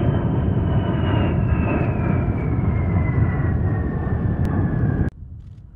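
B-52 Stratofortress jet bomber flying past: loud engine roar with a high whine that slowly falls in pitch. It cuts off abruptly about five seconds in, leaving faint wind noise.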